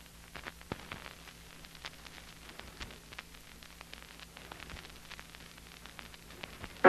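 Surface noise of a flexi disc (Evatone sound sheet) playing in its lead-in groove: a steady hiss with scattered crackles and pops over a low hum, before the music starts.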